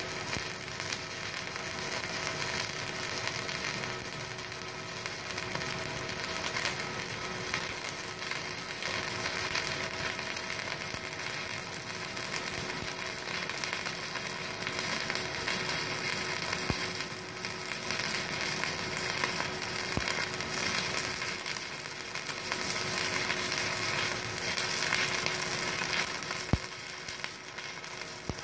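Stick (SMAW) welding arc from a Multipro EG 200A SC inverter welder burning an LB electrode: a steady crackling sizzle, with a few sharp pops in the second half.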